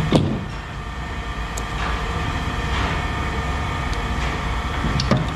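A steady engine rumble, with a short sharp knock just after the start and another near the end.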